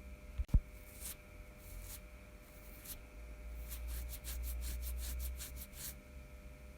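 Fingernails scratching the hair and skin on the back of a man's hand. A few separate strokes give way, in the second half, to a quick run of scratches about four or five a second. A short low thump comes about half a second in.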